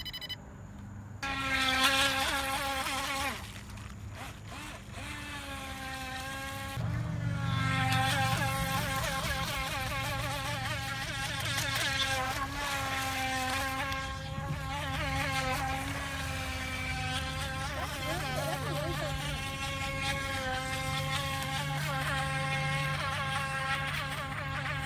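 Water-cooled motor of a UDI radio-controlled toy speed boat running at speed: a high, buzzing whine that wavers in pitch as the boat speeds up, slows and turns.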